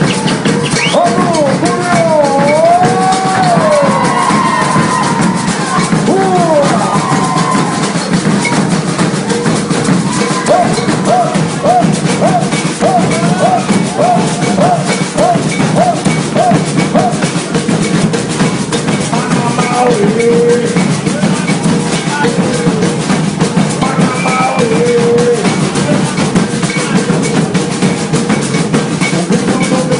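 Maracatu percussion: bass drums and snare drums playing a dense, driving rhythm.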